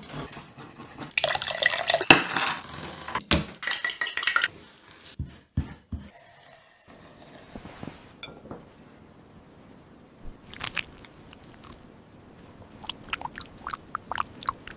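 Kitchen dishes and utensils clinking and clattering, in two busy bursts early on, then a quieter stretch and scattered light clinks near the end.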